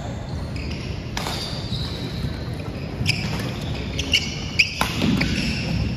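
Badminton rally on a wooden gym floor: rackets strike the shuttlecock with several sharp hits, and sneakers squeak briefly as the players move.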